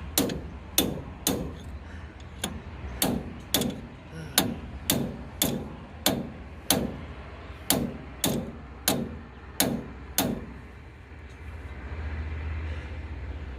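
A hammer striking steel parts of a Massey Ferguson tractor's front axle about twenty times, roughly two blows a second, each with a short metallic ring, driving the part home; the blows stop about ten seconds in.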